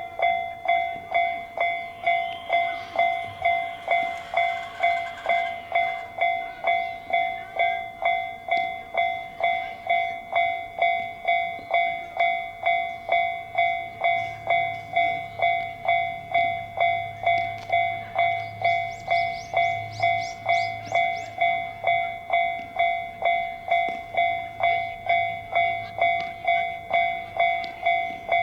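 Japanese railway level-crossing alarm ringing steadily, its electronic bell striking a little under twice a second. About halfway through, a train's low rumble joins it for some twelve seconds, with a quick run of wheel clicks in the middle.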